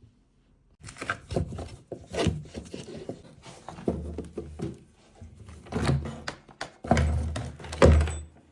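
Irregular knocks, thuds and scraping of hard objects being handled, the heaviest thuds about six, seven and eight seconds in.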